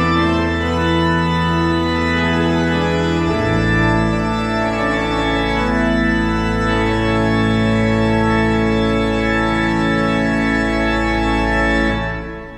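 Organ music in sustained chords, the bass shifting to a new chord about three and a half seconds in; the final chord is held, then released near the end and dies away.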